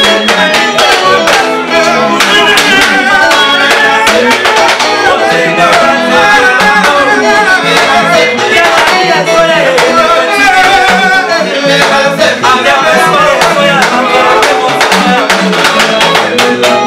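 Congolese band playing live: guitars over a steady percussion beat, with men singing.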